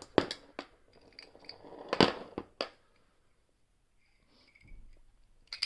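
Sharp metallic clicks and rattles of a lever padlock and its hand-made picking tools being handled as the tools are taken out, with the loudest clicks just after the start and about two seconds in, and one more near the end.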